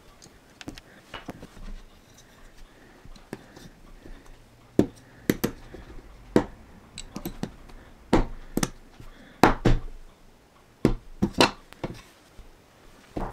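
LEGO plastic bricks being pressed and snapped together by hand: a run of sharp clicks and snaps, coming in loud clusters from about five seconds in. Before that come lighter, sparser ticks of metal tweezers on the plastic pieces.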